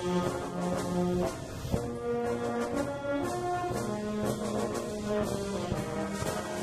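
Wind band of clarinets, brass and percussion playing a march, the low brass holding long notes under the melody, with repeated drum strokes and one sharp stroke a little under two seconds in.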